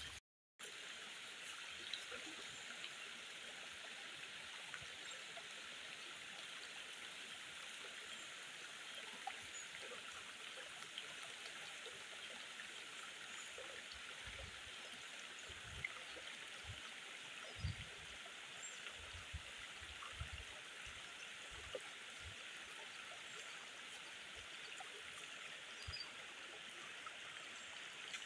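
Shallow stream running over rocks: a steady rush and trickle of water, with a few soft low bumps in the second half.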